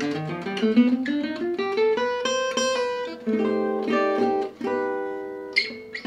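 Gypsy jazz acoustic guitar playing a single-note run that climbs steadily in pitch, then two chords struck and left ringing. The lines are B7 altered sounds, C melodic minor over B7, resolving toward E minor.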